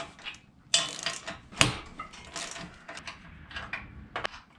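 Small steel hardware being handled: nuts, lock washers and a socket wrench clinking against the studs and support bracket. Several sharp metallic clinks with a brief ring, the loudest about a second and a half in.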